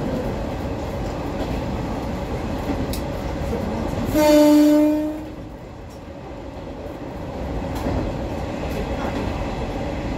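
Kawasemi Yamasemi diesel railcar running along the line, with a steady rumble of wheels and engine. About four seconds in, a train horn sounds once, a steady pitched blast of about a second.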